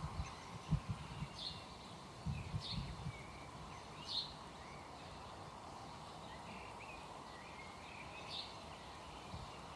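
Birds chirping outdoors: short, high calls repeat about once a second, with gaps. A few soft low thuds come in the first three seconds over a faint background hiss.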